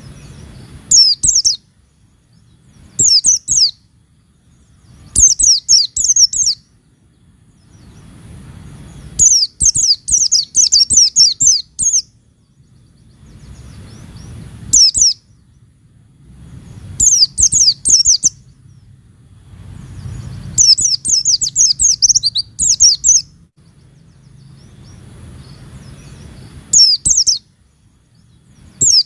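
White-eye (pleci) calling in repeated bouts of rapid, high, falling chirps, each bout from half a second to about three seconds long, with short pauses between.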